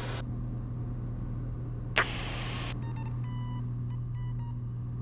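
Turbocharged engine of a Cessna TR182 at full takeoff power, heard as a steady low drone through the headset intercom. A single sharp click comes about two seconds in, followed by a quick run of short beeps lasting about two seconds.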